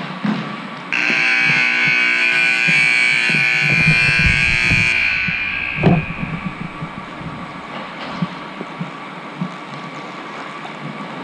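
Rink scoreboard horn blaring, a loud steady many-toned blast that starts abruptly about a second in, holds for about four seconds and fades away, followed shortly by a single sharp knock.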